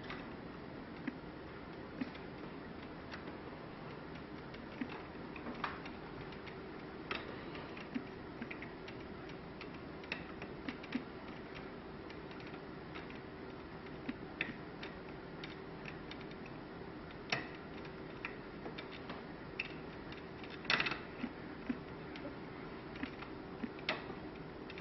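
Scattered small clicks and creaks of plantation shutter repair-kit pieces being twisted into place in the louvers, at irregular intervals, with a faint steady hum underneath.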